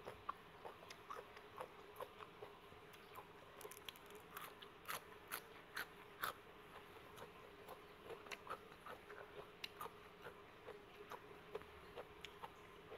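Close-up mouth sounds of a person chewing and biting food: many small sharp crunches and wet clicks, irregular, several a second, over a faint steady hum.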